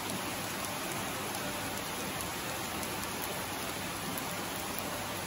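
Steady rush of a shallow rocky stream flowing over stones.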